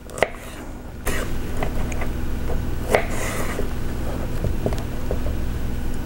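Rada paring knife cutting through raw cauliflower florets on a wooden cutting board: scattered short crisp crunches and taps of the blade on the board. From about a second in, a steady low hum runs underneath.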